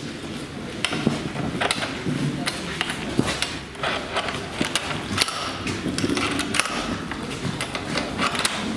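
Heavy wooden swinging doors of a metro station entrance being pushed open and swinging back, with irregular knocks and clatter, footsteps and a busy background hubbub.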